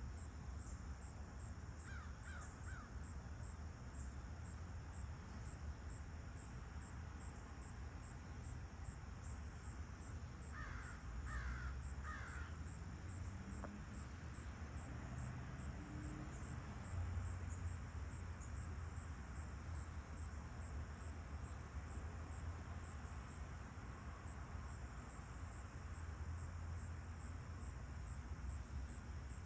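Dawn chorus of crickets trilling steadily and high, while a crow caws twice about two seconds in and three times in quick succession around eleven to twelve seconds in. A low steady rumble runs underneath.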